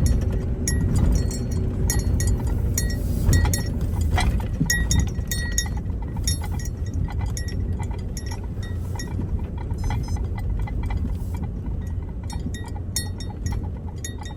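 Low, steady rumble of a vehicle driving, heard from inside the cabin, with frequent small clinks and rattles of loose items.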